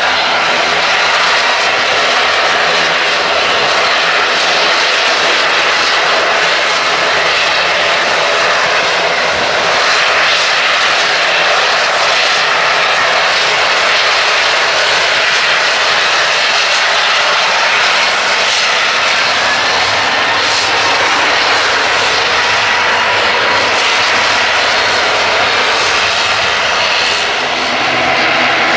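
Airliner engines running loud and steady, an even roar with a strong hiss, easing slightly near the end.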